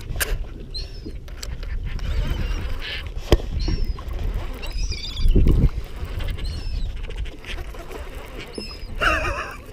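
Birds calling overhead: short, high calls that bend in pitch, repeating every second or so, over a low rumble of wind on the microphone. A few sharp knocks and a low thump about five seconds in come from handling the rod and reel.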